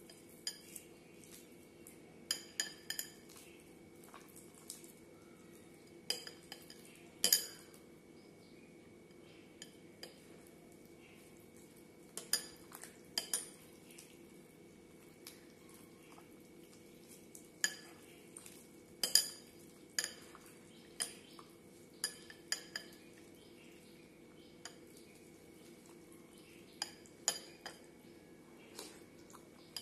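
A hand mashing soft food in milk in a glass bowl, with irregular sharp clinks of fingers and bangles against the glass, coming in small clusters with the loudest about seven and nineteen seconds in. A steady low hum runs underneath.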